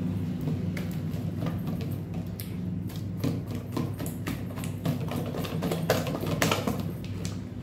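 Maida-and-curd batter with soda being beaten by hand in a steel bowl to make it puff: quick, irregular slaps of the hand through the thick batter, coming faster and louder in the second half, over a steady low hum.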